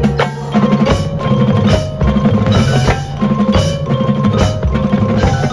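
Marching band show music carried by the percussion: ringing mallet-percussion notes from the front ensemble over a repeated, pulsing low drum pattern.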